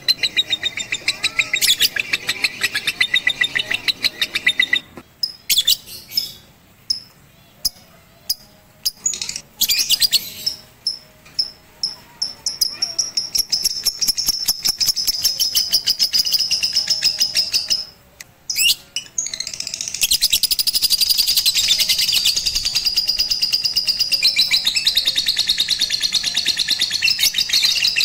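Lovebird chattering in long runs of rapid, high chirps, broken by short pauses, then unbroken and louder for the last third.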